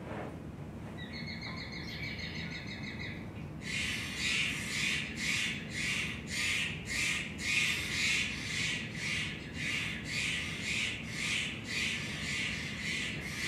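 Field recording of Steller's jays at a feeder during a sharp-shinned hawk call playback. A short, rapid pulsed call comes first, then from about four seconds in harsh calls repeat about twice a second.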